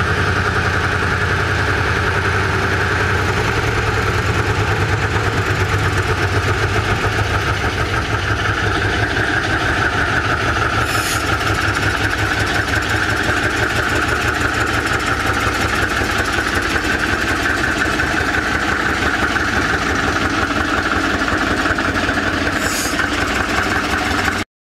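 Small diesel shunting locomotive's engine running steadily as it moves slowly past with a tank wagon, with an even, fast pulsing beat. Two brief high-pitched squeals come about 11 and 23 seconds in, and the sound cuts off abruptly just before the end.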